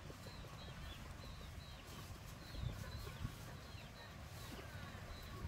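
Faint small-bird chirps and twitters, with an uneven low rumble underneath.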